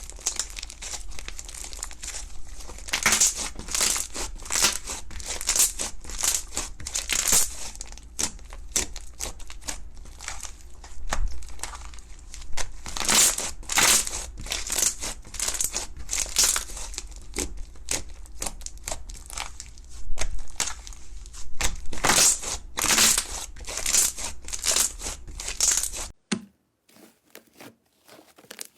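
Slime being squished and pressed by hand, giving a dense crackling and popping that swells louder every second or so. About 26 seconds in it cuts abruptly to a much quieter stretch with only a few scattered small pops.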